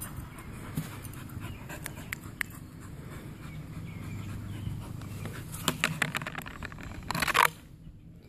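A young Blue Heeler and Black Lab mix dog panting after running, with scattered sharp clicks and a short loud rustle about seven seconds in.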